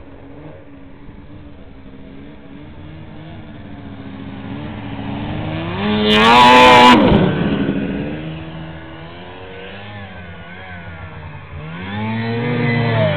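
Ski-Doo Formula snowmobile's two-stroke engine running and revving as the sled rides through snow. It builds to a loud peak about six seconds in, drops back, and revs up again near the end.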